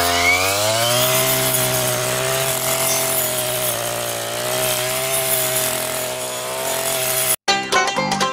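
Petrol brush cutter's small engine speeding up over the first second, then running steadily at high revs with a slight waver, before cutting off abruptly near the end.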